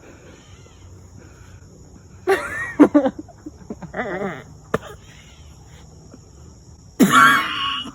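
A person's wordless vocal sounds in short bursts, about two and four seconds in, with a loud one near the end, over steady insect trilling.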